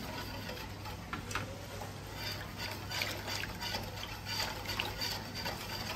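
Milky liquid poured in a thin stream into a stainless-steel bowl of raw pandan custard mixture while a wire whisk stirs it, with light, scattered clicks of the whisk against the bowl.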